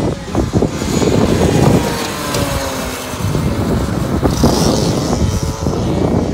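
Two-stroke racing go-kart engines buzzing as karts lap the circuit, their pitch rising and falling as they rev through the corners, with wind rumbling on the microphone.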